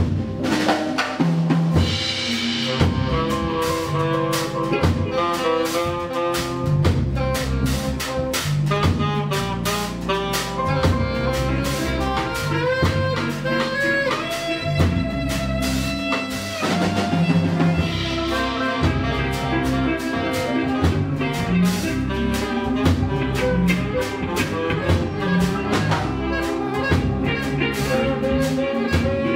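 Live ensemble music: a drum kit plays a dense run of strikes throughout, under saxophone and other pitched instruments.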